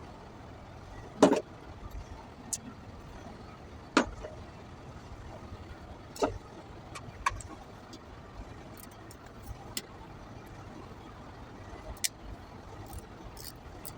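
Scattered sharp clicks and knocks of hand tools against metal, a few seconds apart, the loudest about a second in, over a steady low background hum.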